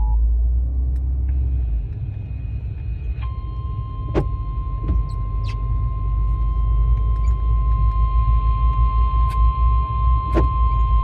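Emergency Alert System warning tone received on an FM radio: about three seconds in, a single steady pitched alert tone (the 1050 Hz weather warning tone) starts and holds unbroken. A constant low rumble runs underneath, with a few sharp clicks.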